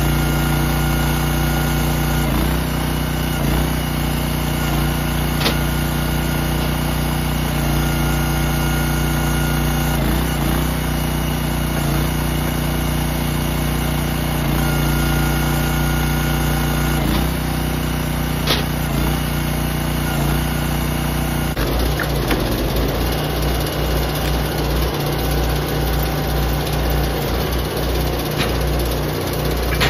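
Small gas engine of a hydraulic log splitter running steadily, its pitch dipping briefly every few seconds as the ram works under load. Two sharp snaps stand out, about a fifth and two-thirds of the way in.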